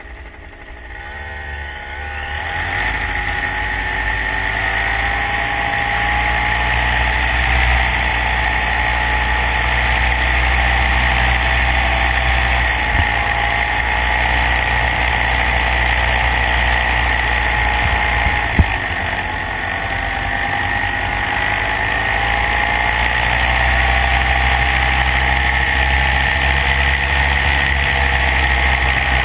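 A motor vehicle engine speeding up over the first two seconds or so, then running steadily at a constant pace, with a single sharp knock about eighteen seconds in.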